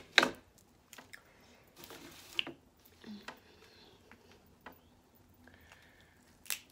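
Snow crab leg shells being snapped and picked apart by hand: a sharp crack just after the start and another near the end, with quieter cracks and picking sounds between.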